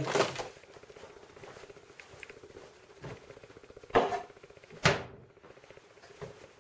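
Wooden cupboard door opened and shut: two sharp knocks about a second apart near the middle, the second the louder, over a faint steady hum.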